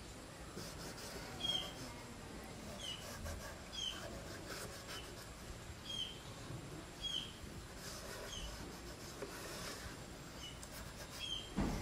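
A small bird chirping faintly and repeatedly, short high notes that slide downward, roughly one every second or so.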